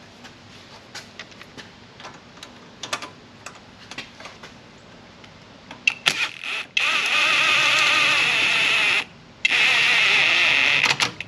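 Light clicks from handling tools and exhaust hardware, then a handheld power tool running in two steady spells of about two seconds each, with a short pause between, as it tightens the nuts on the exhaust V-band clamps.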